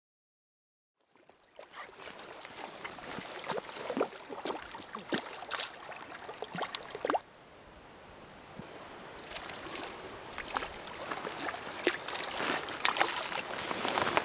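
River water running and lapping at the bank, with frequent small splashes and gurgles. It starts about a second in, drops off abruptly around the middle, then builds up again.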